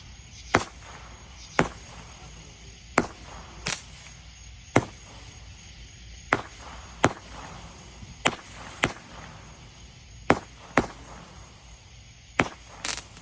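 Fireworks going off: about a dozen sharp, separate bangs at uneven spacing, roughly one a second, each with a short echoing tail.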